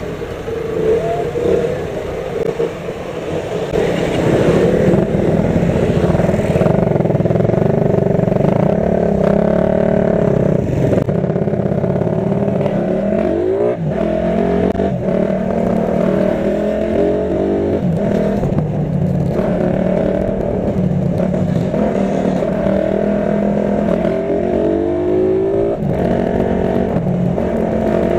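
Motorcycle engine running while riding in traffic, its note rising and falling with the throttle.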